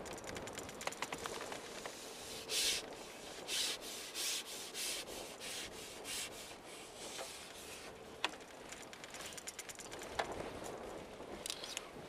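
A run of short rasping rubs a few seconds in, about six or seven in a row, with scattered light clicks and ticks through the rest.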